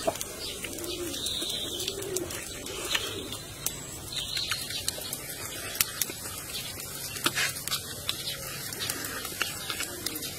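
A dove cooing over and over: low, soft coos that rise and fall, about one a second. Underneath are chewing sounds and a few sharp clicks.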